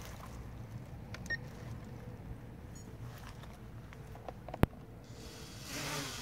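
A short high beep about a second in and a sharp click a little after four and a half seconds. Then, near the end, a small quadcopter's motors spin up to a whine that wavers up and down in pitch as the throttle moves, during a troubleshooting test of a Blade 200 QX.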